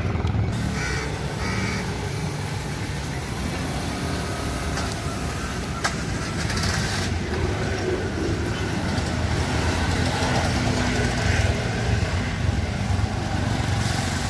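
Street traffic ambience: a steady rumble of passing vehicles and engines, with crows cawing.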